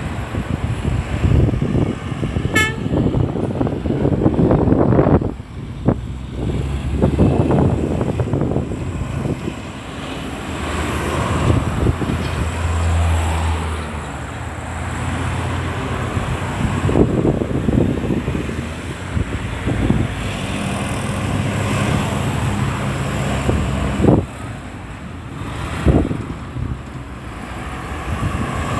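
Road traffic on a busy roundabout: cars and trucks passing and pulling away, with a short car-horn toot near the start.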